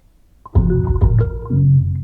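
Instrumental beat: after a quiet half-second the full beat drops in, with heavy bass, sustained keyboard chords and sharp drum hits.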